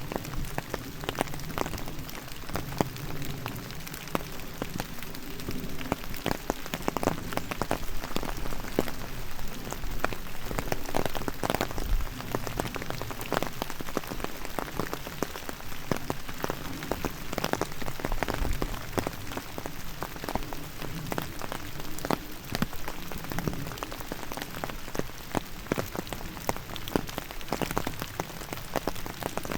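Steady rain falling, with many separate drops striking close by at irregular moments.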